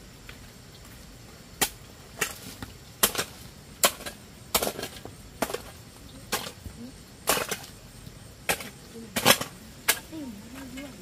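A hoe blade chopping into hard, stony earth: about a dozen sharp strikes, roughly one a second, some followed by a short scrape as the soil is dragged loose.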